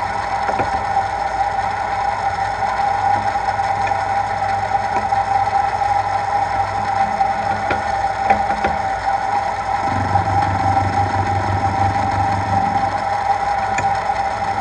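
Milling machine spindle running steadily at about 300 rpm in its low range on direct gears, with a steady gear whine. A few light clicks come through, and a short rhythmic rattle starts about ten seconds in and lasts some three seconds.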